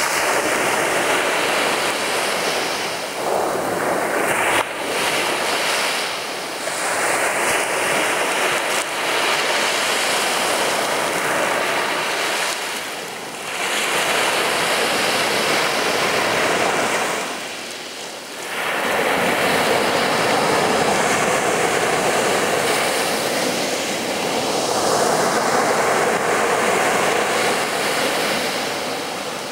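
Sea waves breaking and washing on a beach, a continuous surf wash that swells and eases, with brief lulls between surges.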